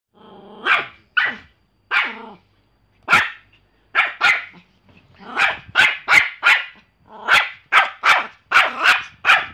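Pomeranian barking: about sixteen short, sharp barks, some single and some in quick runs of two to four.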